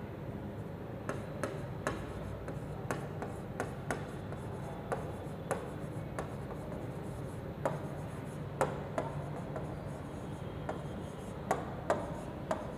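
Stylus writing on an interactive smart-board screen: irregular short taps and scrapes of the pen tip against the panel, a few a second. Behind them runs a steady low hum.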